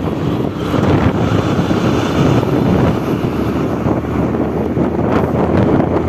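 Steady wind rush on the microphone of a moving motorcycle, mixed with engine and road noise.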